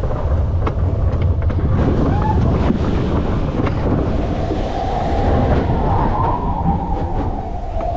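Matterhorn bobsled car running fast along its track: a heavy rumble with scattered clatter and wind across the microphone. A drawn-out higher tone rises and falls through the second half.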